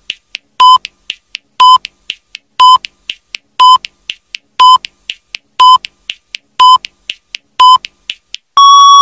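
Countdown timer beeping once a second: short electronic beeps with two faint ticks between each, ending in one longer, slightly higher beep as the count runs out.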